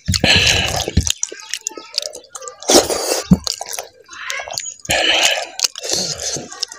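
Close-miked wet chewing and lip smacking of pork fry and rice, with squelching as gravy-soaked rice is mixed and squeezed by hand, in irregular bursts.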